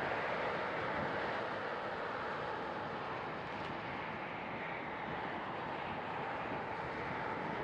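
Airbus A340-300's four CFM56 jet engines heard from afar as a steady rushing roar while the airliner lands.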